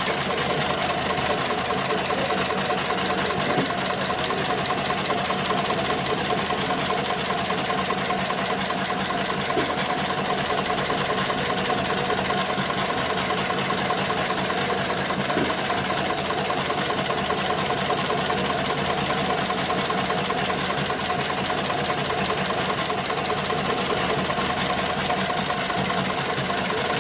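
Industrial sewing machine for safety-harness webbing running steadily at high speed, a fast even clatter of needle strokes that cuts off right at the end.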